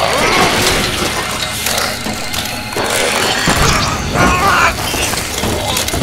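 Film sound effects of clockwork machinery: a dense run of ratcheting clicks and gear clanks.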